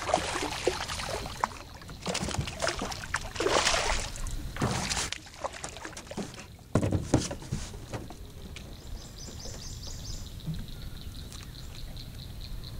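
Hooked fish splashing and thrashing at the water's surface while being reeled in close and landed, with water sloshing in uneven bursts. After about eight seconds the splashing dies down and a fast, even run of faint high ticks is heard.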